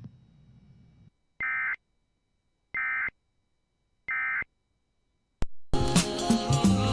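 Emergency Alert System end-of-message signal: three identical short bursts of warbling SAME digital data tone, each about a third of a second long and spaced a little over a second apart, marking the close of the alert. About a second after the last burst there is a click, and music starts near the end.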